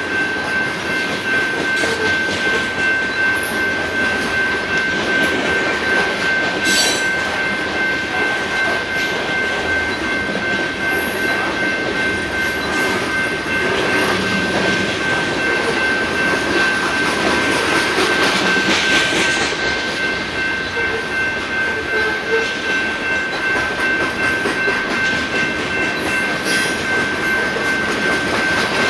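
BNSF freight train's cars rolling past in a steady, unbroken rumble of wheels on rail, with a thin steady high-pitched ring above it.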